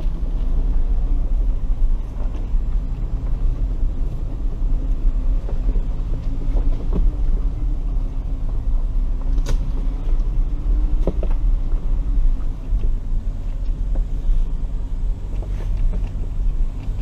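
Ford Ranger FX4 driving over a rough dirt trail, heard from inside its cabin: a steady low rumble from the engine and drivetrain, with two sharp knocks about nine and a half and eleven seconds in.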